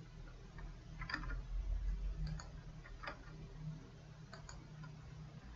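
A few faint computer mouse and keyboard clicks, spaced about a second apart, over a low steady hum.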